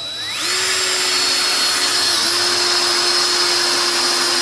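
Power drill driving a screw into a deck board, the motor spinning up over about half a second into a steady whine, with a brief dip about two seconds in.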